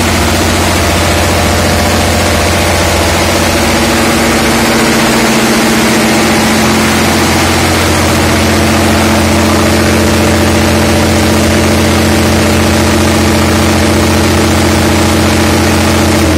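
Ship's emergency generator engine running steadily at its rated speed, with the generator delivering 60 Hz. It is really quite noisy.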